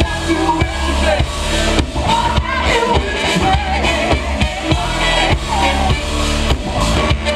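A live funk band playing, with a strong bass line, steady drum hits and a wavering sung or horn melody, heard from within the audience of a concert hall.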